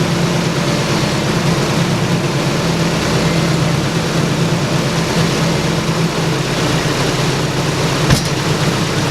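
Nissan 240SX engine idling steadily while the steering is worked, with no power steering pump whine: the pump freshly flushed, refilled with ATF and bled of air. A brief click near the end.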